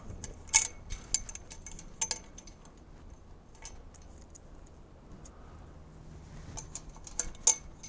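Aluminum twist ties being wrapped by hand around metal deer fence wire and a steel fence post: light metallic clinks and jingles with a few sharp clicks scattered through, the loudest about half a second in and near the end.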